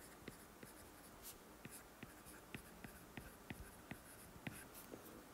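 A stylus writing by hand on a tablet's glass screen: a string of faint, irregular taps and ticks as the letters are drawn.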